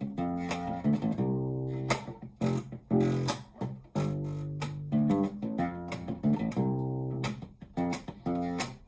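Taylor acoustic bass guitar played with the fingers: a simple pentatonic lick built on root, fifth and octave, plucked in short phrases with brief gaps.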